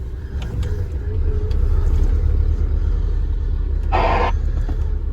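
Low, steady engine and road rumble inside the cab of a slowly moving delivery truck, with a short burst of hiss about four seconds in.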